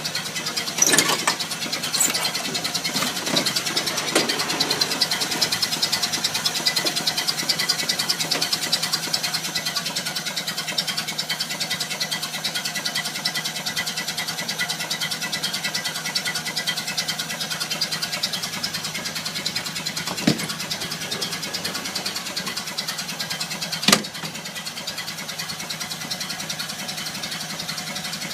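Old car's engine running steadily at idle, with a fast, even firing pulse. A few sharp clacks come in the first few seconds, and single ones about twenty and twenty-four seconds in; after the last clack the engine runs slightly quieter.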